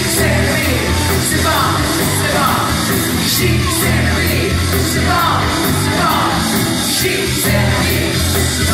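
A woman singing live into a handheld microphone over a loud dance backing track with a steady beat, played through a venue sound system.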